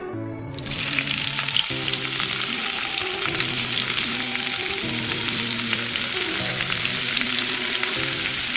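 Fries deep-frying in hot oil: a steady sizzle that starts about half a second in, with soft music underneath.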